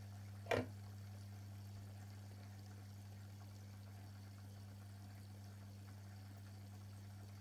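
Aquarium pump running with a steady low hum and faint water noise. A single short knock about half a second in.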